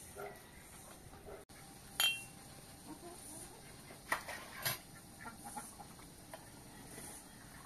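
Tea things clinking: a metal kettle and glasses knocked while tea is served, with one sharp ringing clink about two seconds in and two more clinks a little past the middle. Hens cluck in between.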